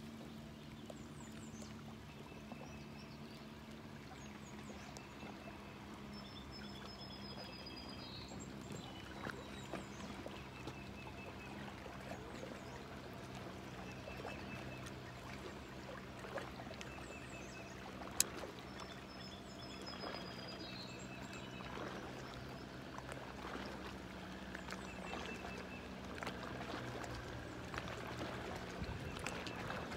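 Lakeshore ambience: water lapping and trickling at the rocky shore, with the steady low hum of a distant boat motor and birds singing short repeated phrases. One sharp click sounds about eighteen seconds in.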